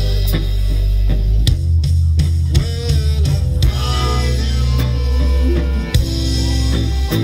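Live rock band playing: drum kit, electric guitar, bass guitar and keyboard, with a strong steady bass line and drum hits.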